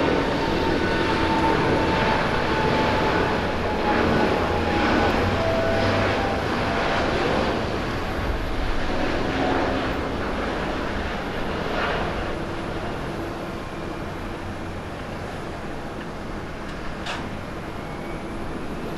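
Jet engines of an Airbus A350 (Rolls-Royce Trent XWB turbofans) at takeoff thrust as the airliner finishes its takeoff roll, lifts off and climbs away. The jet noise is loudest at the start and fades steadily as the aircraft climbs out.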